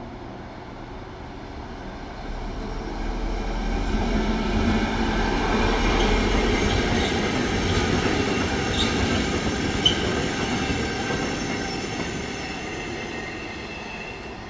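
A freight train passing, growing louder over the first few seconds and fading toward the end. Several steady high tones ring over the rumble of the wagons, with one sharp click a little past the middle.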